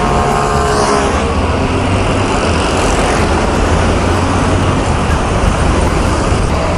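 Steady din of city road traffic, motor scooters and cars running at a busy intersection, with a low engine rumble under it.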